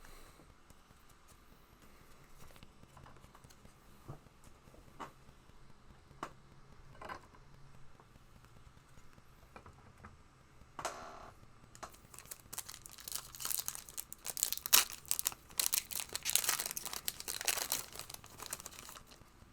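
A few light clicks of trading cards being handled, then, past the middle, a long run of crinkling and tearing as a foil Prizm booster-pack wrapper is ripped open.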